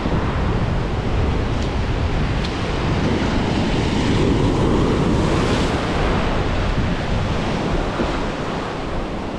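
Surf washing over shallow lava rock, foaming white water hissing and rushing, with wind buffeting the microphone. The wash swells louder a few seconds in, then eases slightly toward the end.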